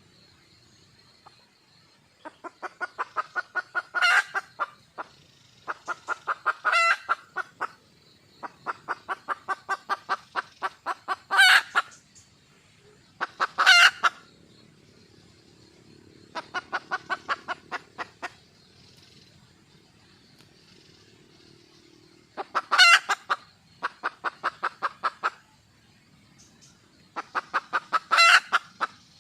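Junglefowl hen calling: repeated runs of quick clucks, about five a second, each run getting louder and ending in a loud, sharp squawk, repeated about eight times.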